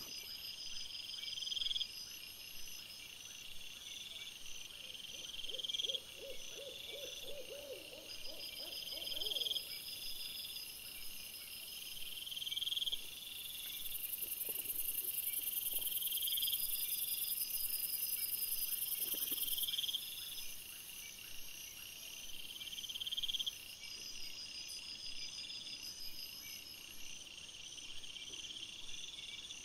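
Night insects trilling high and steadily, in a pattern that repeats every second or two. About a quarter of the way in comes a short run of rapid low pulsed calls, and there are a couple of brief low calls later.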